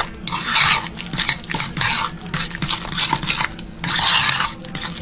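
A fork stirring mashed avocado in a bowl, mixing in lemon juice: wet squishing and scraping, with many quick clicks of the metal fork against the bowl.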